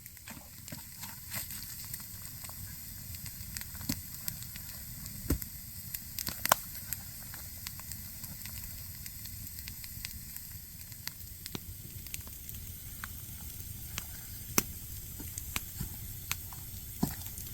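Wood campfire crackling, with sharp pops scattered irregularly throughout; the loudest pop comes about six and a half seconds in.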